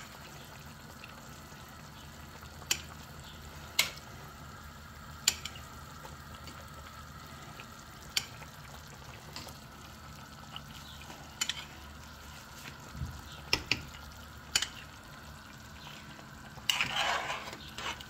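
A pot of chicken paprikash with flour dumplings simmering on a gas burner, a steady low bubbling broken by a scattering of sharp clicks. Near the end a metal spoon stirs and scrapes in the pot.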